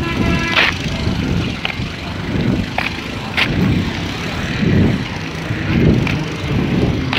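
Road vehicle noise: a heavy low rumble that swells and fades, with scattered rattling clicks and a brief high-pitched tone near the start.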